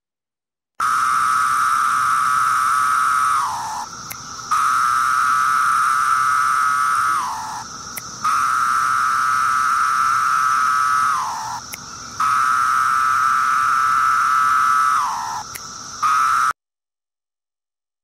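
Recorded song of male 17-year periodical cicadas: a loud, steady buzzing call held about three seconds, then dropping in pitch at its end. It repeats four times, and a fifth call is cut off just after it begins. This is the males' mating song, sung to attract females.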